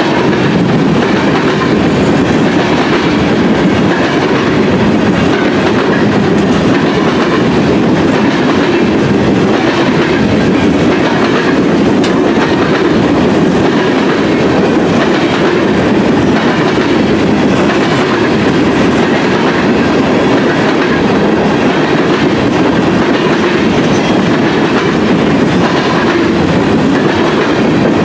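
Freight train of covered hopper cars rolling past at close range: steady rumble and clatter of steel wheels on the rails.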